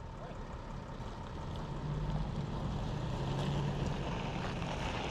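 A vehicle engine running, its low hum growing louder about two seconds in, over a steady noisy rush.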